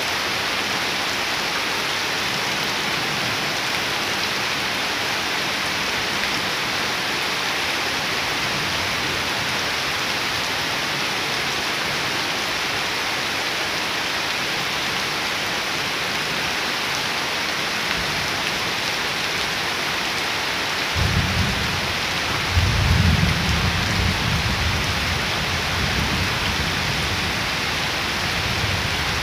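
Steady rain falling on wet ground and leaves. About twenty seconds in, a low rumble of thunder rolls for several seconds, then fades back into the rain.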